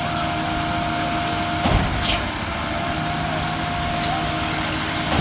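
Concrete pump truck running steadily during a pour, with a low knock followed by a short hiss about every three and a half seconds, the rhythm of the pump's strokes.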